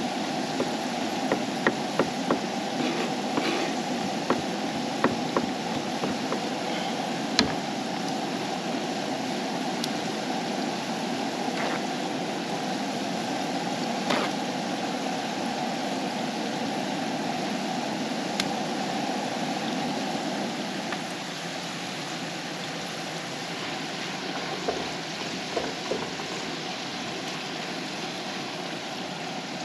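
Fries sizzling in hot oil in a frying pan on a propane camp stove, a steady hiss that eases a little about two-thirds of the way through. Quick knife chops on a wooden cutting board in the first few seconds, with occasional clicks later.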